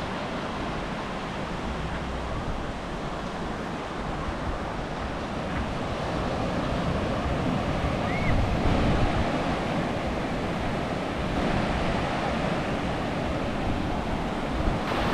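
Ocean surf breaking and washing up a sandy beach: a steady rush of waves that grows louder about halfway through.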